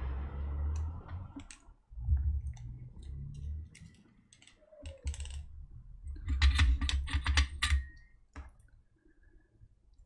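Scattered light clicks and taps from small tools and solder being handled on a workbench, with soft low thumps, thickest a little past halfway. A soft hiss fades out in the first second or so.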